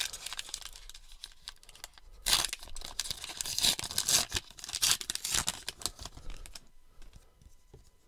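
Baseball card pack wrapper being torn open and crinkled. The rustling is light at first, turns into a dense run of tearing and crackling from about two seconds in, and dies away near the end.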